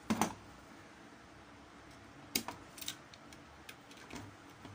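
A few scattered sharp clicks and taps from hands handling a desktop motherboard and its parts on a workbench. The loudest click comes near the start, with several lighter ones over the next two seconds.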